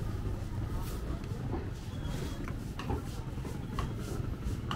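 Busy street ambience: a steady low rumble of traffic, with scattered short clicks and knocks.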